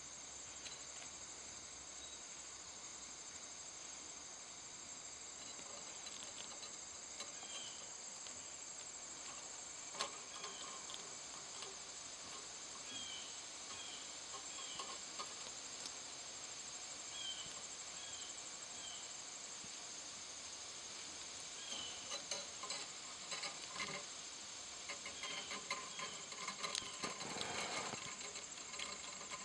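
Steady high-pitched trilling of insects such as crickets, with short high chirps in twos and threes now and then. One sharp click about ten seconds in, and a run of light clicks and rustling in the last several seconds.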